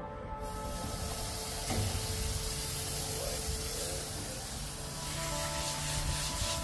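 Garden hose spraying water onto a dog's coat, a steady hiss that starts about half a second in, with background music underneath.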